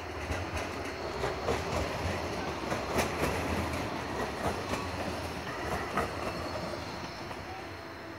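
Basel tram running along its tracks: a steady rail rumble with irregular sharp clicks of the wheels over rail joints and points. It swells toward the middle and eases off near the end.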